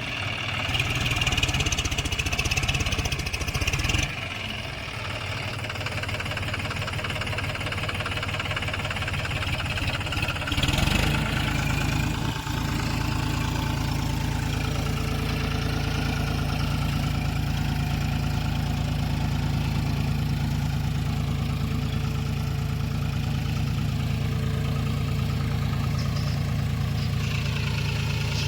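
Diesel engine of heavy machinery running steadily, with a change in note about four seconds in and a brief louder surge about eleven seconds in, then settling to an even, idle-like running.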